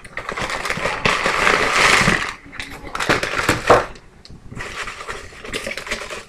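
Cardboard shipping box being opened by hand: flaps scraping and the white wrapping inside rustling and crinkling, a long rustle about a second in and shorter crackly rustles in the middle and near the end.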